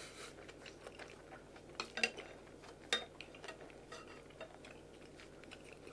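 Chopsticks stirring a mixture in a large bowl, with faint scattered clicks and scrapes and a few sharper taps against the bowl about two and three seconds in.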